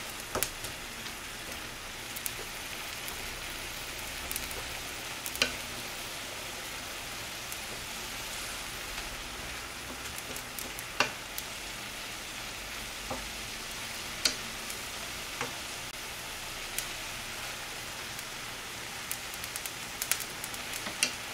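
Julienned radish sizzling in a frying pan in a little water, the radish giving off its own liquid as it softens, stirred with a wooden spatula that knocks against the pan now and then.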